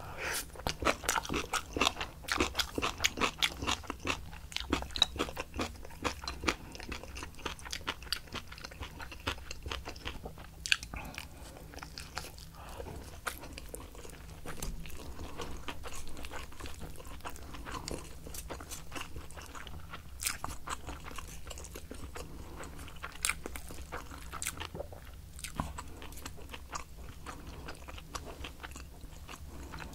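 Close-miked chewing of crisp napa cabbage kimchi: rapid, sharp crunches for the first several seconds, thinning to slower, softer chewing with scattered crunches.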